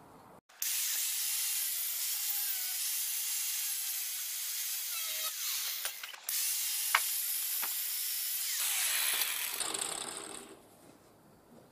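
A power tool cutting through the metal tube of a stool frame: a steady, high-pitched hissing cut that starts abruptly about half a second in, breaks off briefly about six seconds in, then dies away near the end.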